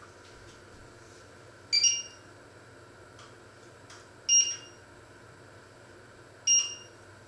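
Touch-control glass cooktop beeping three times, short high electronic beeps about two seconds apart, as its control pads are pressed to switch on and set the cooking zone.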